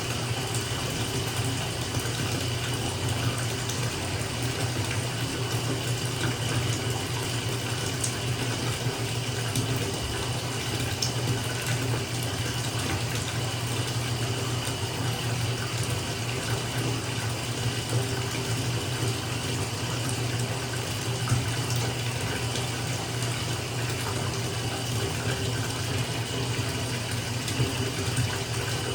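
Tap water running steadily into a filling bathtub, an even splashing rush with a deep drumming undertone.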